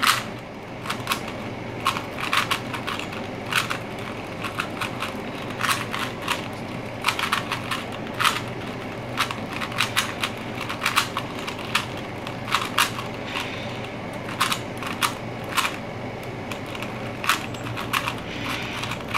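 A 3x3 Rubik's Cube being solved by hand: its plastic layers click and clack as they are turned, in quick irregular runs of several clicks a second with short pauses between.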